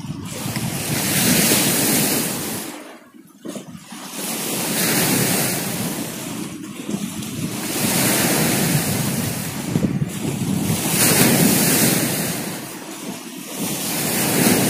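Sea waves and wind at the shoreline, a steady rushing noise that swells and eases every few seconds, with wind buffeting the microphone.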